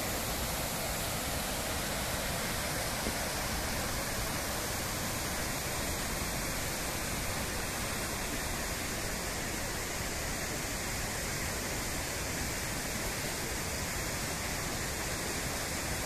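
Mountain stream rushing steadily over boulders.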